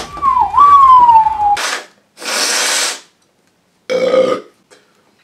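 A man burning from a Carolina Reaper chip lets out a high, falling whine for about a second and a half. Breathy hissing exhales follow. About four seconds in comes a short blow into a tissue.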